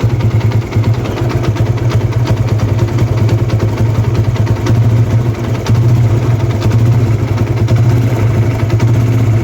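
TVS Apache RTR 160's single-cylinder engine idling steadily with a rapid ticking over it, the kind of tick the owner blames on the timing-chain tensioner.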